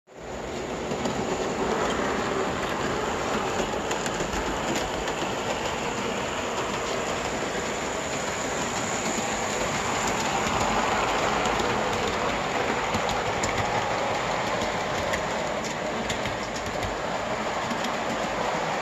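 Vintage O scale model of a Pennsylvania Railroad GG1 electric locomotive, cast bronze, running steadily around the layout with cast-aluminum passenger cars on three-rail track. It makes a continuous rolling rumble of metal wheels on the rails, with scattered faint clicks.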